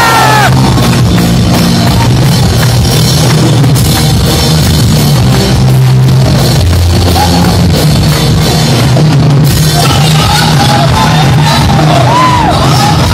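Live rock band playing loud: electric guitars, bass guitar and a Yamaha drum kit, recorded close to overload with poor sound quality.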